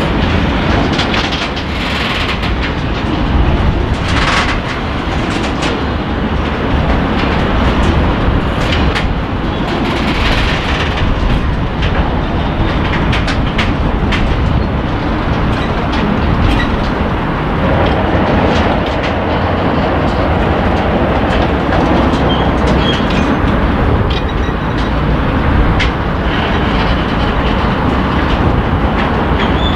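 A rake of bogie hopper wagons rolling past during shunting, their wheels clattering over rail joints in a steady rumble, with a few sharp knocks and clanks.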